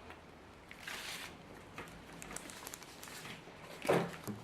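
Handling noise from a plastic toy and its packaging: a short rustle about a second in and scattered light clicks, with one louder brief low sound near the end.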